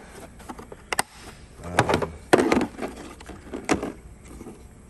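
Tool cases and tools being handled in a toolbox drawer: a few sharp knocks and clatters, the loudest a little past two seconds in.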